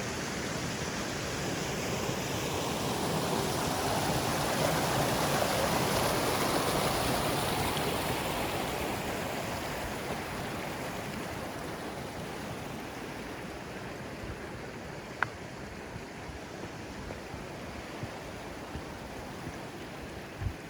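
Mountain stream rushing, swelling to its loudest a few seconds in and then fading away. A single sharp click sounds about two-thirds of the way through.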